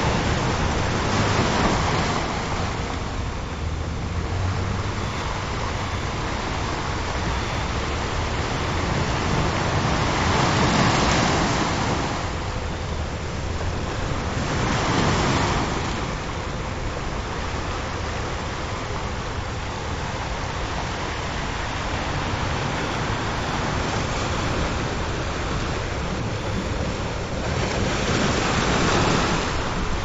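Ocean surf washing in and out, swelling and fading every several seconds, with a faint steady tone underneath.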